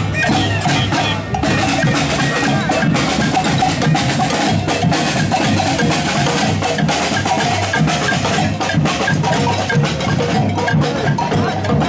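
Marching drum group playing a steady, rhythmic beat on snare and larger slung drums.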